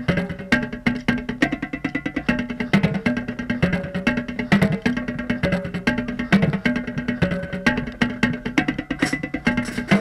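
Marching tenor drums (a five-drum quint set) played in a fast drumline cadence close to the microphone, rapid sticking moving around the pitched drums. The heads are damp from rain and ring very little.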